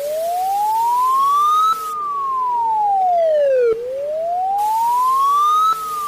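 Wailing siren sound effect: a single tone sliding up for about two seconds and down for about two seconds, over and over, over a steady lower tone.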